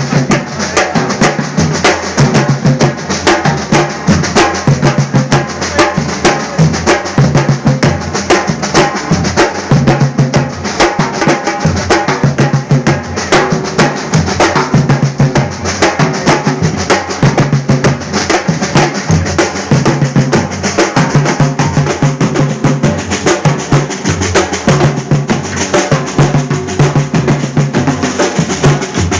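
Drums played in a fast, steady rhythm, with a deep drum pattern coming round about once a second under dense quicker strokes.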